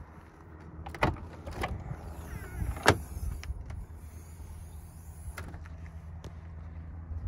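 Tailgate of a 1995 Audi S6 Avant estate being unlatched and lifted open: a few sharp latch clicks, the loudest about three seconds in, with small squeaks, then a high hiss for a couple of seconds as the hatch swings up, and one more click near the end of the hiss.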